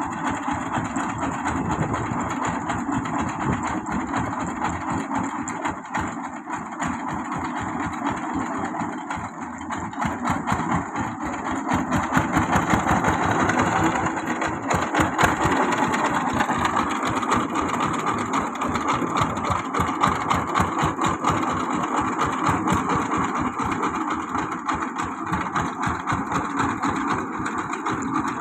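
Engine of a grandong, an Indonesian rural multipurpose vehicle, running with a rapid, steady pulsing beat. It gets louder for a few seconds about halfway through, then settles back.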